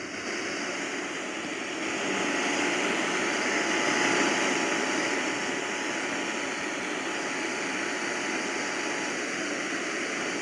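Heavy radio static hiss. Under it a faint EAS two-tone attention signal sounds from about half a second in until about nine seconds in.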